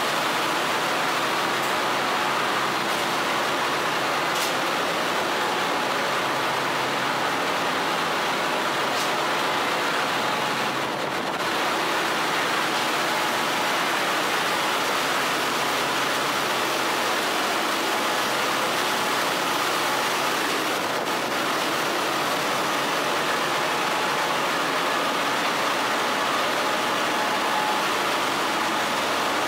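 Steady, loud machinery din of a ship's engine room with its diesel engines running: an even noise with faint steady hum tones running through it.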